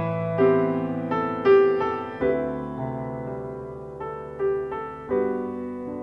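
Background piano music: slow notes and chords, each struck and left to fade.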